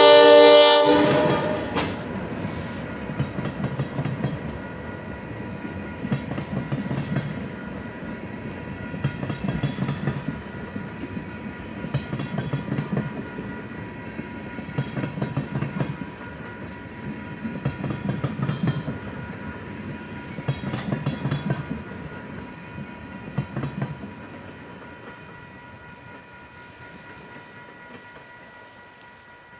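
A freight train's horn sounds and cuts off about a second in. Then the train's cars roll past, their wheels clicking over the rail joints in a group every two to three seconds over a low rumble, fading away near the end.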